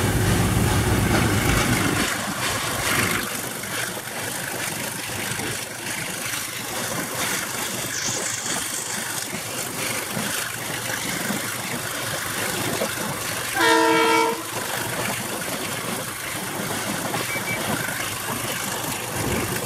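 Train running steadily, heard from the cab of a Baldwin Pacific steam locomotive: continuous rumble and running noise, heavier for the first two seconds. About two-thirds of the way through comes one short, multi-note signal blast from the train.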